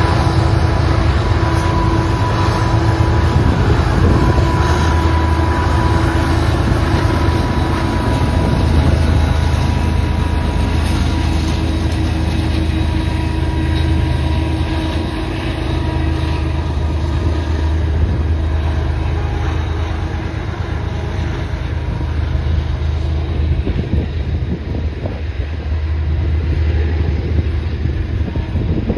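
Freight train passing close by: diesel locomotives, among them QNSL 321, run with a steady low engine drone and a faint whine that fades out about halfway through. Tank cars then roll past with wheel noise on the rails.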